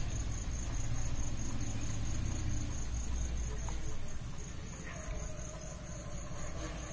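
Steady low hum with a faint, high-pitched chirping that pulses evenly several times a second, insect-like. A couple of faint ticks sound midway.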